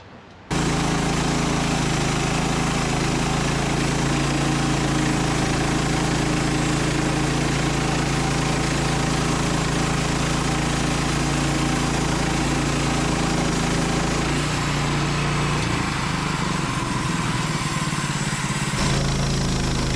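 Engine of a Norwood Lumbermate LM29 portable sawmill running steadily. It starts abruptly about half a second in, wavers unevenly for a few seconds in the second half, then settles again.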